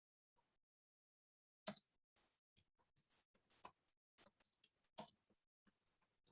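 Near silence broken, from about a second and a half in, by a run of faint, irregular clicks and taps.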